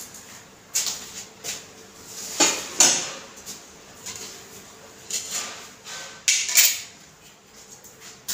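Steel kitchen utensils and dishes clinking and scraping against one another in a string of separate clatters, two of them louder than the rest.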